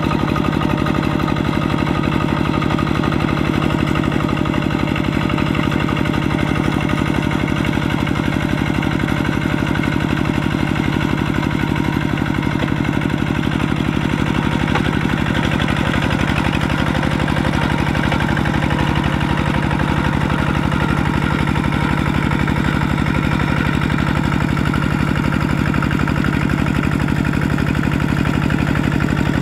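Single-cylinder Kubota RT120 diesel engine of a two-wheel walking tractor running steadily with an even, rapid firing beat as the tractor works through paddy mud.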